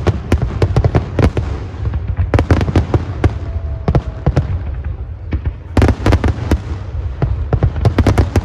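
Fireworks going off in rapid clusters of sharp bangs and crackles over a continuous low rumble. A short thin whistle comes about three and a half seconds in.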